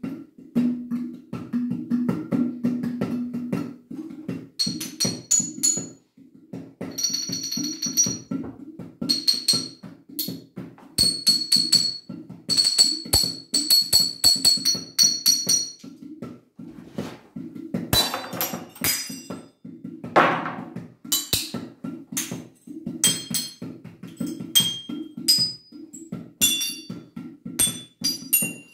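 Improvised percussion on a ceramic flower vase and a plastic water bottle: a steady rhythm of quick taps and crackles, over which the struck vase rings with high chime-like tones. About 18 seconds in the vase shatters with a crash, and the broken ceramic shards are then tapped for short high pings.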